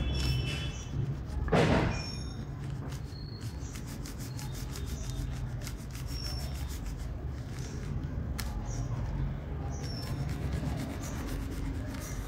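Blue crayon scribbling on paper in quick back-and-forth strokes: a steady dry rubbing and scratching with small clicks, and one louder scrape about two seconds in.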